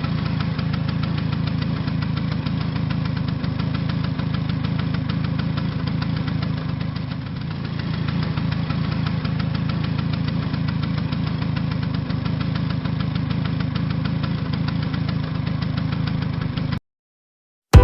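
Motorcycle engine running steadily at an even speed, briefly a little quieter about seven seconds in. It cuts off abruptly near the end.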